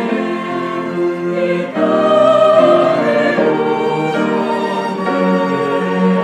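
Mixed choir singing a slow choral anthem in Korean, accompanied by violin, two cellos, flute and piano. The music swells louder a little under two seconds in.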